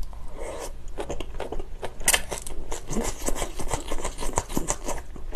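Close-miked chewing of a mouthful of spicy stir-fried pork and glass noodles: wet mouth clicks and smacks in quick succession, with a sharper click about two seconds in.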